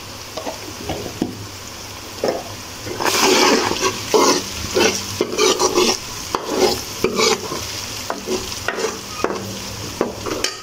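Metal ladle stirring and scraping an onion-tomato masala around a metal karahi, the masala sizzling as it fries with its freshly added spices. The scraping strokes come irregularly, thicker from about two seconds in.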